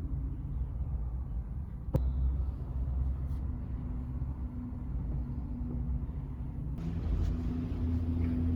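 Steady low mechanical rumble with a faint steady hum, and a single sharp click about two seconds in.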